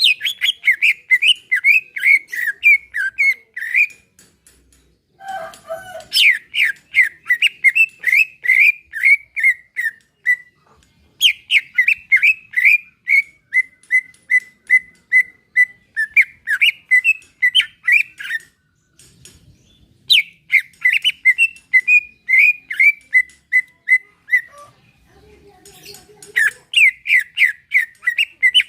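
Cucak ijo (green leafbird) singing: phrases several seconds long of quick, repeated chirping and whistled notes, separated by short pauses.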